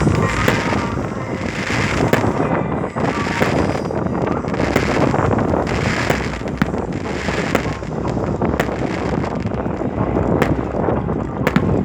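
New Year's fireworks and firecrackers going off: sharp bangs at irregular intervals over a steady low rumble of wind on the microphone.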